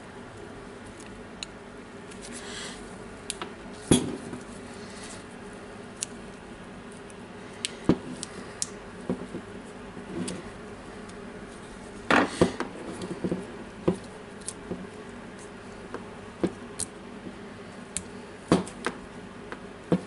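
Scattered small plastic clicks, knocks and scrapes as a cordless drill's trigger switch and controller assembly is prised apart by hand with a screwdriver, the sharpest about 4 s, 12 s and 18 s in, over a faint steady hum.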